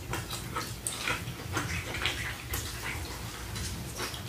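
Close-miked chewing and wet mouth smacks: irregular clicks and snaps several times a second over a low steady hum.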